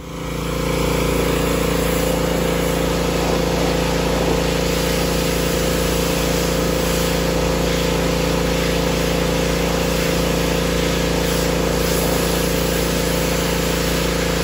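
Pressure washer running steadily, its motor's hum under the hiss of the water jet spraying wicker chairs. It starts up about half a second in and holds level without change.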